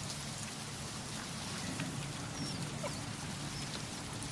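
Steady rain falling, with a few faint, short, high squeaks about halfway through.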